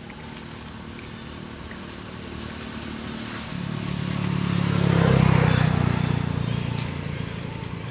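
A motor vehicle's engine passing by. A steady hum grows louder to a peak about five seconds in, then fades away.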